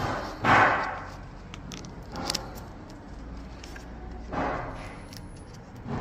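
Dried VersaSeal paint skin being peeled and picked by hand off a DeWalt impact driver: scratchy tearing and rubbing noises, the loudest about half a second in and another about three-quarters through, with a few small clicks in between.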